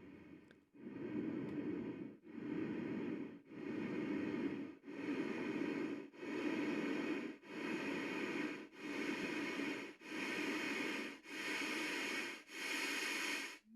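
LectroFan white noise machine being stepped through its noise settings: a steady hiss that cuts out briefly about every 1.3 s and comes back with a different pitch, brighter each time, about ten settings in a row. A short rising tone sounds right at the end.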